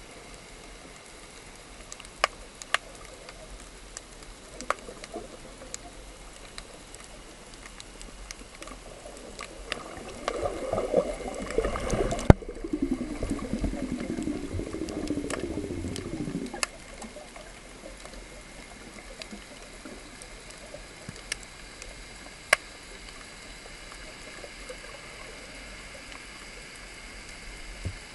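Underwater sound picked up by an action camera beneath the sea surface: a steady low hiss with scattered sharp clicks. From about ten seconds in, a louder stretch of churning water noise lasts about six seconds, with one sharp knock in the middle of it.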